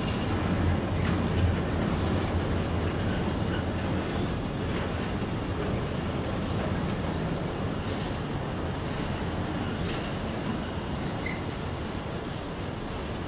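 Intermodal container flat wagons of a freight train rolling past: a steady rumble of wheels on rail with occasional faint clicks, slowly getting quieter.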